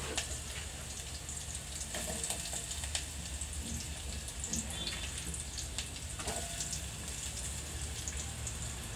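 Chopped onions frying in hot oil in an aluminium pot on a gas burner: a steady sizzle with scattered small pops.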